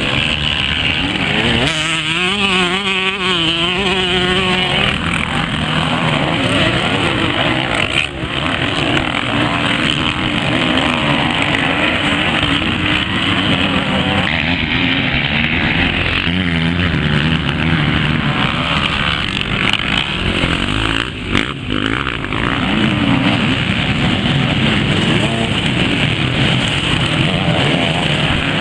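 Several off-road motorcycle engines running hard on a race course, revving up and down as the bikes ride past, over a steady mix of engine noise.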